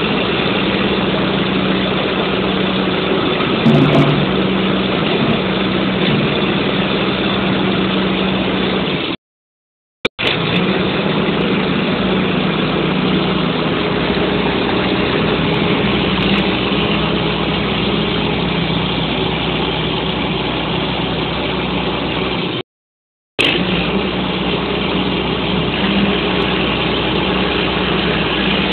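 Huddig 1260 backhoe loader's diesel engine running steadily. The sound cuts out completely twice, once for about a second and once for under a second.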